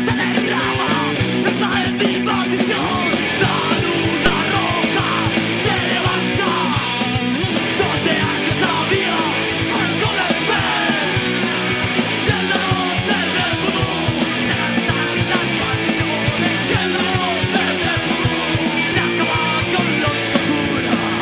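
Horror punk band playing live: electric guitar and a drum kit driving a fast song, with shouted, yelled lead vocals over it.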